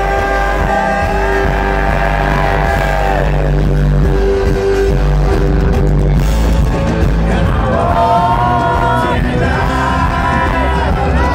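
A rock band playing a song live, heard from the crowd with a heavy bass: guitars and drums under several voices singing long held notes. The voices drop out about three seconds in and come back about eight seconds in.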